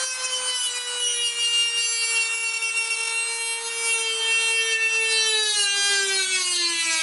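Corded handheld rotary tool with a cutting wheel whining as it cuts a canard to length. Its pitch sags slowly as it bites, drops further in the last couple of seconds, and the tool stops right at the end.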